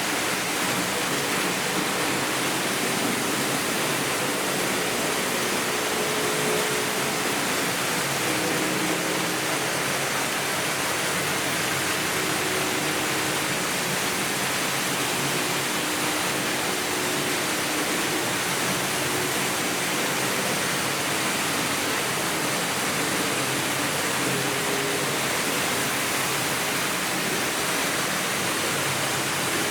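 Several Märklin H0 model trains running at once: a steady rushing of metal wheels on the track, with the faint whine of the locomotives' electric motors rising and fading now and then.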